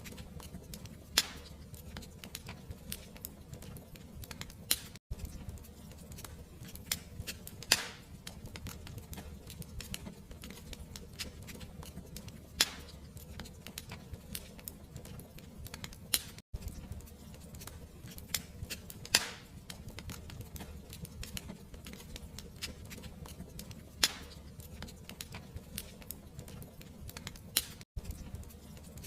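Fireplace fire crackling: scattered sharp pops, a louder one every few seconds, over a steady low rumble of flame. Three very brief dropouts in the sound come about eleven seconds apart.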